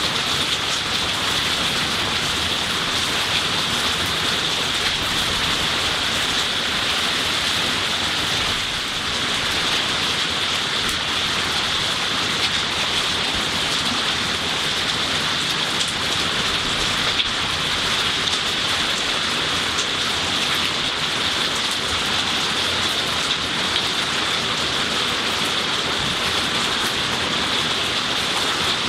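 Steady heavy rain pouring onto tree leaves, lawn and garden plants, a dense even hiss with no thunder.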